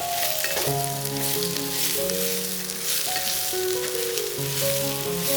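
Food frying in hot fat in a pan: a steady sizzle with fine crackles. A simple melody of held notes plays over it as background music.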